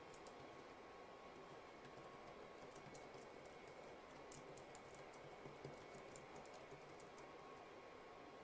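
Faint, irregular tapping of keys on an Anker ultra-slim Bluetooth keyboard as someone types, a few light clicks a second, over a low steady hiss.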